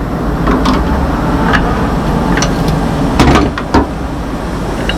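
Fire truck engine running steadily with a low rumble, with several sharp knocks over it, the loudest a little past halfway.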